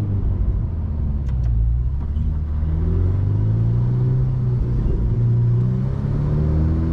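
Ferrari F8 Spider's twin-turbo V8 running at cruising speed, heard from the open-top cockpit, its note rising and falling in pitch a couple of times as engine speed changes.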